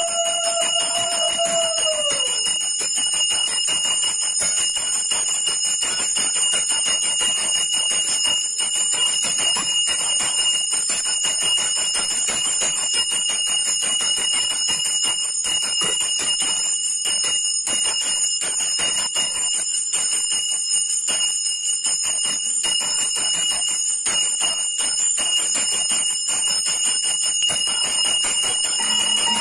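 Puja hand bell rung rapidly and without a break during aarti, a continuous bright ringing. A conch shell sounds a long held note at the start that slides down and stops about two seconds in, and is blown again at the very end.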